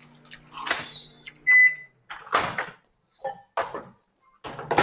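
A steady appliance hum stops about a second and a half in and a single short high beep follows, then several knocks and clatters of kitchen things.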